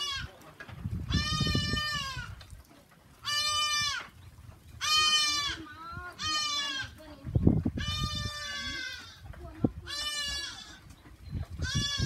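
Goats bleating again and again, about seven separate high, wavering bleats from more than one animal. A low thump about two-thirds of the way through is briefly the loudest sound.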